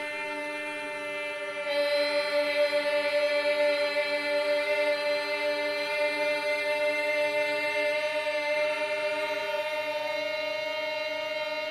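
Experimental drone music: several steady tones held together in a choir-like chord. About two seconds in, a higher note joins and the chord swells louder with a wavering pulse that slowly eases off.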